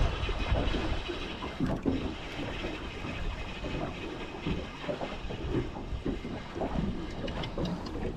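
Wind buffeting the microphone over water lapping around a small fishing boat, an uneven rushing with no engine running.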